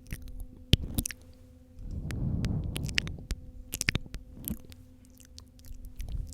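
Close-microphone wet mouth sounds of ASMR spit painting: scattered sharp mouth clicks and smacks, with a softer rushing sound about two seconds in.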